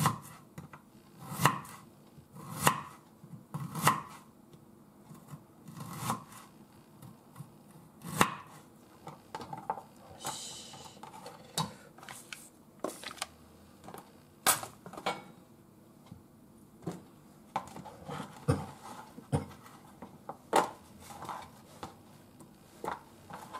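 Kitchen knife slicing daikon radish on a wooden cutting board: single chops a second or two apart through the first eight seconds or so, then lighter, scattered taps and clicks as the slices are handled.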